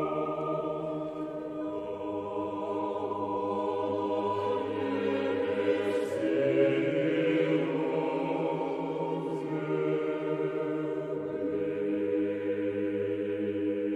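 Background music: a choir singing slow, held chords that change every few seconds.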